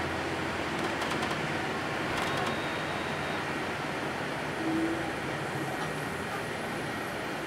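Steady engine and road noise heard from aboard a moving vehicle in street traffic, with a brief tone about five seconds in.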